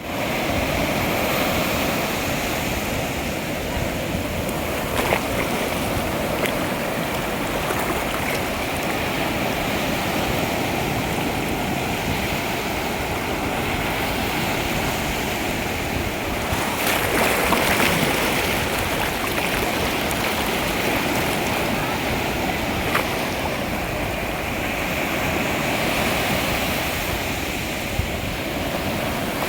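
Ocean waves washing onto a shore: a steady rush of surf that swells briefly a little past the middle.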